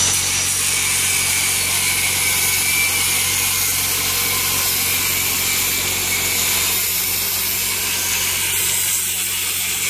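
Angle grinder with a cutoff wheel cutting through a rusty metal wall bracket, running steadily without a break.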